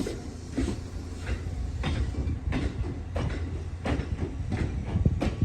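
Train rolling slowly on rails, its wheels clacking over rail joints about every two-thirds of a second over a steady low rumble.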